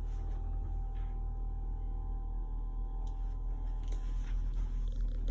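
A steady machine hum with a faint steady high whine over it, as from equipment running aboard the boat.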